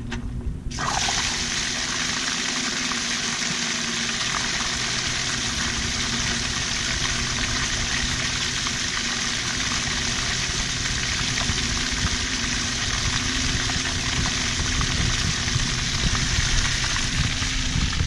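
Water pouring steadily from a PVC sump pump discharge pipe into the mesh-covered top of a buried corrugated drain pipe, starting suddenly about a second in. A steady low hum runs underneath.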